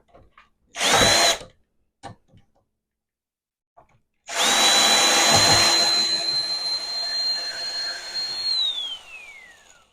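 Power drill running: a short trigger pull about a second in, then a longer steady run starting about four seconds in, with the motor whine gliding down as it spins to a stop near the end.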